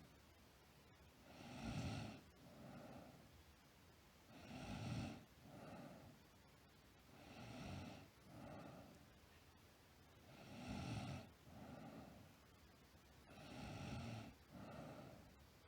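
A sleeping girl snoring in a steady rhythm, about one breath every three seconds. Each breath is a louder snore followed by a shorter, softer one.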